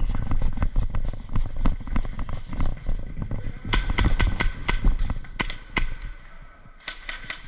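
Airsoft guns firing a string of sharp shots from about halfway in, about nine in two seconds, then a quick burst of four near the end. Before the shots there is a low rumble with dull knocks.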